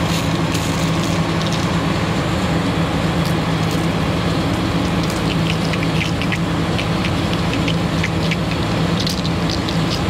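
Combine engine running steadily, with a few light metallic clicks from a ratchet wrench opening the bleed screw on a draper header's reel-lift hydraulic cylinder to bleed air out of it.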